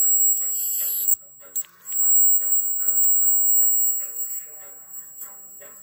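Homemade scrap-iron-core step-up transformer, driven at about 4 kHz by a 555 timer, whining with a steady high-pitched tone. The whine cuts out briefly about a second in, then comes back.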